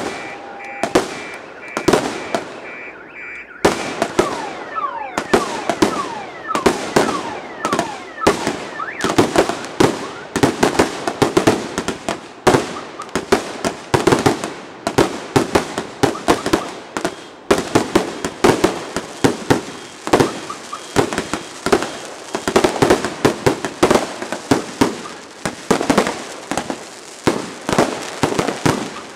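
Fireworks going off in rapid succession: a dense run of bangs and crackles several times a second, with whistling shells rising and falling between them.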